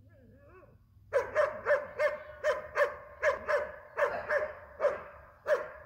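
A dog barking in a fast, steady run, about three barks a second, after a few faint whines in the first second.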